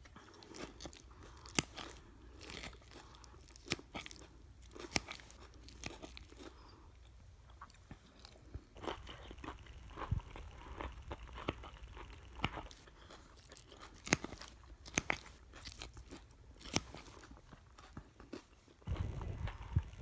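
Close-miked chewing of crunchy raw salad (lettuce, red cabbage, shredded carrot, cucumber), with irregular sharp crunches. A louder, muffled low noise comes in near the end.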